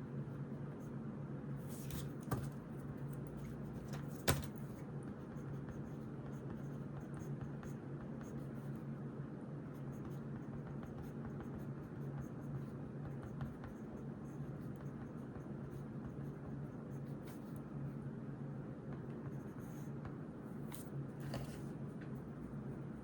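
Writing by hand on notebook paper: a light, uneven scratching, with two sharp taps about two and four seconds in. A steady low hum runs underneath.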